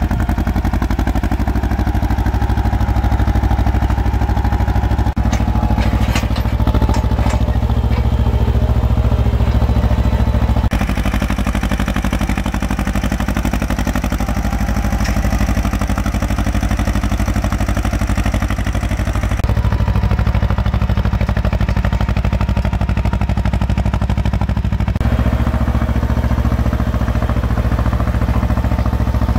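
Ursus C-330 tractor's two-cylinder diesel engine running steadily under load while pulling a single-tine subsoiler through heavy clay. The sound changes abruptly a few times where shots are cut together, and there are a few brief clicks a little after five seconds in.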